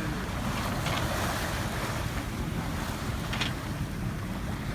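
Wind buffeting the microphone over the rush of water along a sailing yacht's hull, with a couple of brief splashes.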